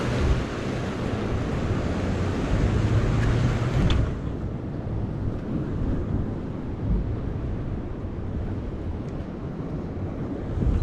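Wind buffeting the microphone over the wash of surf on jetty rocks, a steady rushing noise whose hissy top drops away about four seconds in.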